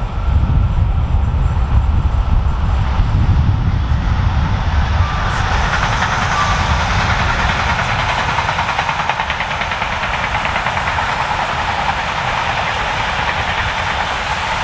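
Train passing close by on the mainline: a heavy low rumble for the first few seconds, then a steady rush of wheel and rail noise.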